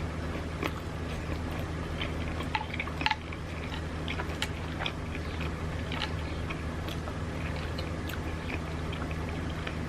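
Close-up crunching and chewing of hot Cheetos: irregular crisp crackles throughout, over a steady low hum.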